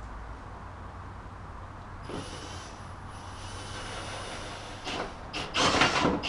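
Drill turning a 2-inch hole saw into a truck bumper. A steady high whine starts about two seconds in, then loud grinding bursts come near the end as the saw cuts.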